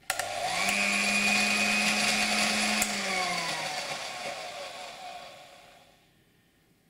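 Electric hand mixer switched on with a click, its motor speeding up over the first half second and then running steadily with a high whine. About three seconds in it clicks off and the motor winds down, falling in pitch and fading out over the next few seconds.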